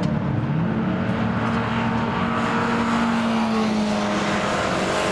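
Classic car engine accelerating down a race circuit straight and passing by. The engine note dips briefly just after the start, rises steadily, then falls slightly after about three seconds as the car goes past.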